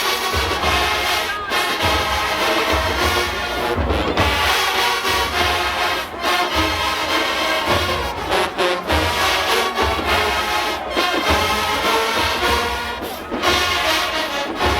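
HBCU-style marching band brass playing a sustained, full chorded passage over a steady pulsing bass of tubas and drums.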